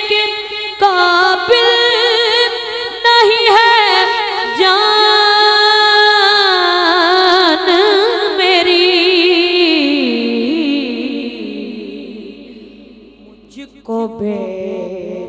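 A boy naat reciter singing a long wordless melismatic passage through a microphone, with wavering held notes that slide down in pitch and fade out about ten seconds in. A new steady held tone starts near the end.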